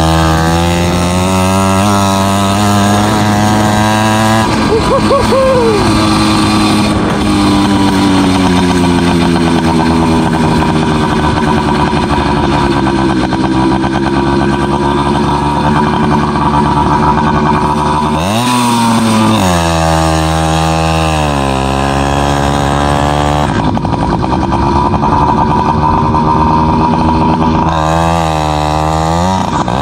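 FM-80 two-stroke motorized-bicycle engine with a mini expansion chamber running under way, its revs slowly rising and falling. The revs drop off and climb again about eighteen seconds in, and once more near the end.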